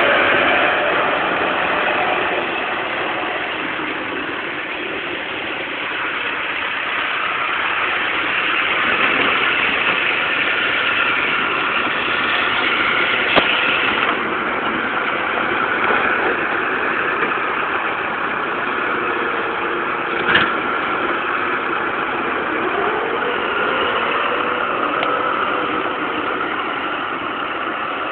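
Massey Ferguson 390T tractor's diesel engine running steadily while it works the front loader and drives with a bucketload of dung, its engine speed rising and falling. Two short knocks, about 13 and 20 seconds in.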